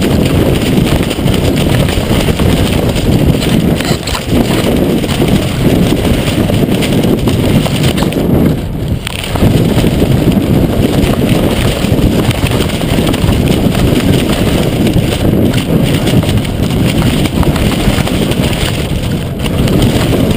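Strong gusty wind buffeting a GoPro's microphone: a loud, dense, low rumble with a brief lull about eight and a half seconds in.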